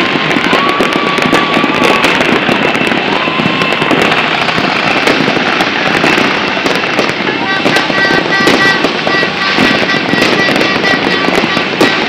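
Many firecrackers and aerial fireworks going off at once, a dense, continuous crackle of bangs and pops from all sides. Steady high tones sound through it, and they turn into a pulsing beep-like pattern from about eight seconds in.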